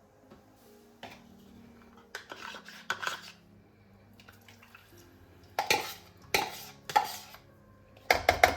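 Dishes and metal utensils clinking as kitchen work is done: a few softer clinks, then three sharp clinks spaced over a second or so, and a quick run of clinks near the end.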